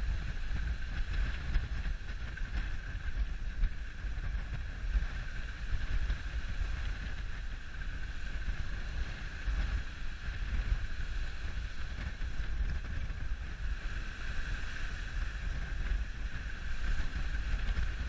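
Wind buffeting the microphone aboard a schooner under sail: a steady low rumble with a steady hiss higher up.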